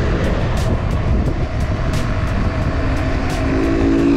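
Heavy wind rushing over a bicycle-mounted action camera's microphone during a fast downhill coast. A steady low hum comes in about three seconds in and grows near the end.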